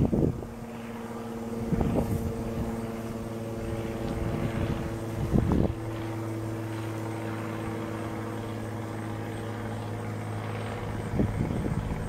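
Honey bee swarm clustered on a tree branch, humming steadily. The hum is broken by three short, louder bursts of noise.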